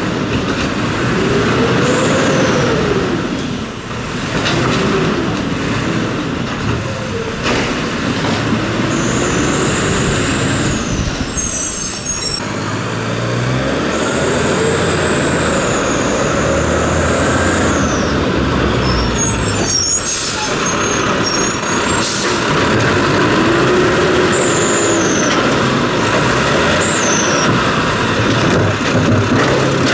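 Labrie Automizer automated side-loader garbage truck's diesel engine revving up and falling back, over and over every few seconds. A high whine comes and goes with the revs, and there are a few short bursts of hiss about halfway through.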